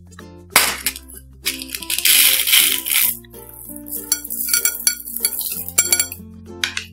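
Plastic beads and glitter rattling and pouring into clear slime over light background music: a loud hissing rush in the first half, then a run of sharp clicks.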